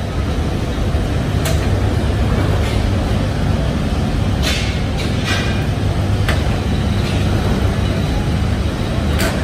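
Steady low machine hum of an electric overhead hoist and factory machinery, with a few sharp metallic clinks from the chains and the hanging bundle of steel leaf springs as it is moved.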